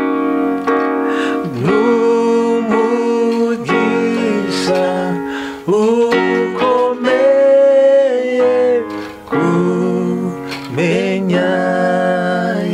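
Electronic keyboard playing sustained chords under a man singing a slow worship song, with gliding phrases and one long held note about two-thirds of the way through.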